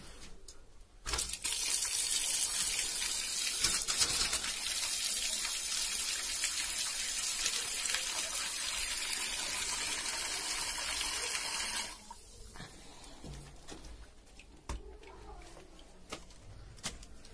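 Water running from a newly plumbed pipe outlet and splashing onto bare earth: a steady rushing that starts about a second in and cuts off suddenly after about eleven seconds, as the new water line is tested for flow.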